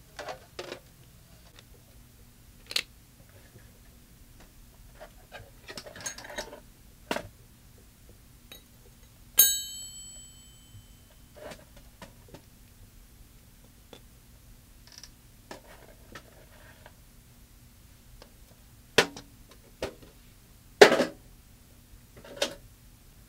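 Metal hand tools (screwdrivers, a wrench, pliers) being set down one by one on a hard floor: scattered clinks and knocks, with one sharp metallic clink about nine seconds in that rings briefly. A faint steady hum underneath.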